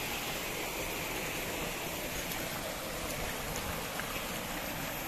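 Shallow rocky stream running, a steady rush of water, with a few faint clicks.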